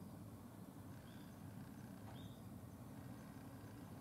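Faint, steady low hum, with three short high chirps about a second apart.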